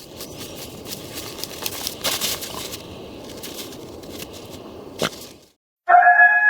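Rustling, crunching noise with sharp clicks and crackles that cuts off suddenly about five and a half seconds in; near the end a held musical note begins.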